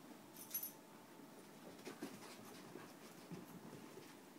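Faint sounds of two puppies at play: paws scuffling on carpet and small puppy noises, with a few sharp clicks about half a second in.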